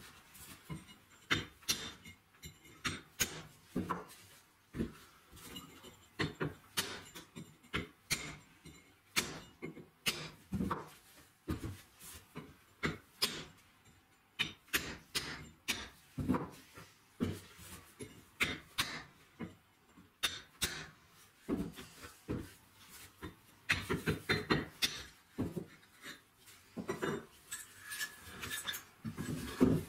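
Repeated sharp taps of a chisel driven into the edge of a slab of Welsh slate along a scored line, splitting it into two thinner slabs. The taps come about one or two a second, with a quicker flurry near the end.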